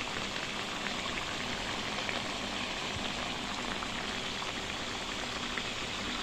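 Chicken curry simmering in a pan: a steady hiss of small bubbling pops.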